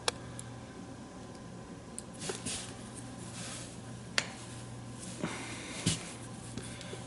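Faint handling sounds of an RC car turnbuckle being turned with a tool: a few small clicks, the sharpest about four seconds in, and soft scrapes, over a steady low hum.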